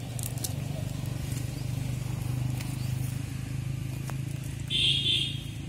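A steady low mechanical hum, with faint scattered taps and rustles as the cast net and small landed fish shift on dry leaf litter. About five seconds in comes a short, loud, high-pitched chirp.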